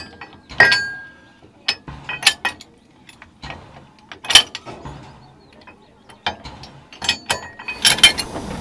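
Metal clanks and clinks from a narrow-gauge railway coupling being worked by hand, a dozen or so sharp knocks at uneven intervals. Near the end a moving train's running noise comes in.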